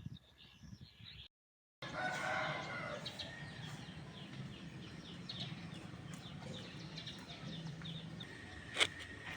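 A rooster crowing, with small birds chirping all around it. A single sharp click near the end.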